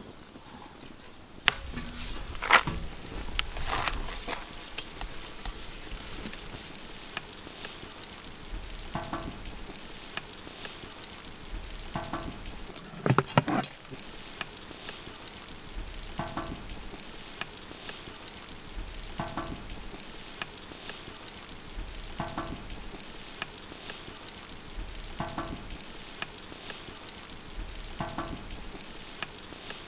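Wood fire burning, with a steady crackle and hiss and sharp pops; the loudest cluster of pops comes about halfway through. A short pitched call repeats about every three seconds under it.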